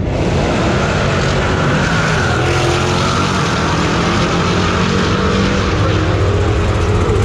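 Drag-race car engines running loud at the strip, a dense steady engine-and-tyre noise with a high whine sliding slowly down in pitch.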